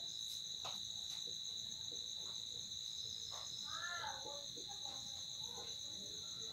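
Steady, high-pitched trill of crickets, with faint scratches of a marker writing on a whiteboard.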